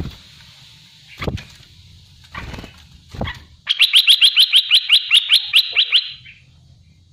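Olive-winged bulbul calling: a few separate short harsh notes, then a fast, even run of about sixteen high notes at roughly seven a second, lasting a little over two seconds.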